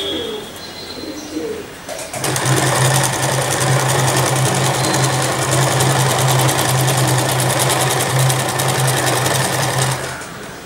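Electric domestic sewing machine stitching at a steady, fast speed: a rapid, even needle clatter over a motor hum. It starts about two seconds in and stops near the end.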